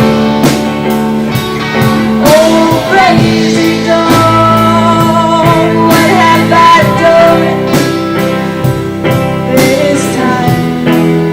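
Live rock band playing an instrumental passage: electric guitar chords, bass and a drum kit keeping a steady beat, with a lead melody line bending in pitch over the top from about two seconds in, and again near the end.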